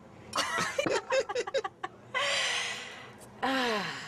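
A person laughing in quick, choppy bursts, then a long breathy exhale and a short voiced sigh that falls in pitch near the end.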